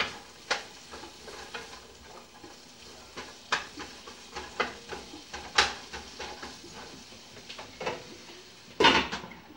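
Sliced onions sizzling in a frying pan while a wooden spoon stirs them, with a sharp knock of the spoon on the pan every second or two. About nine seconds in, a louder clatter as a glass lid is set on the pan.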